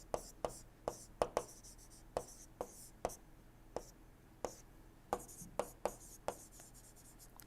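Pen writing out an equation: irregular taps of the pen tip, about two a second, mixed with light scratching strokes, all faint.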